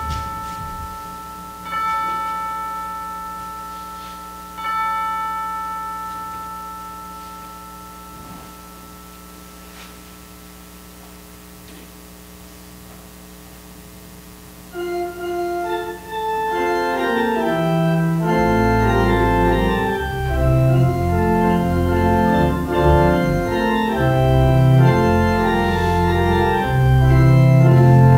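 Three struck, bell-like tones, each ringing out and slowly fading, are followed by a faint low hum. About fifteen seconds in, a church organ begins playing sustained chords, and its deep bass comes in a few seconds later.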